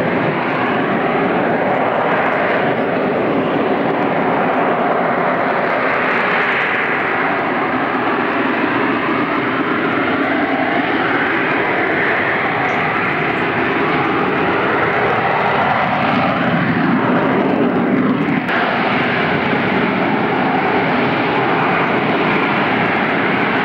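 Harrier jump jet's Pegasus vectored-thrust turbofan running at high power in slow, low flight: a loud, steady jet roar. About three quarters of the way through, its tone glides and shifts as the aircraft turns away.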